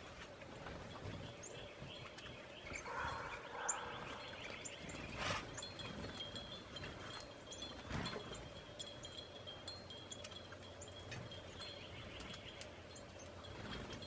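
Wind chimes ringing steadily in the breeze, with small birds chirping in short high notes over them and a couple of sharp knocks about five and eight seconds in.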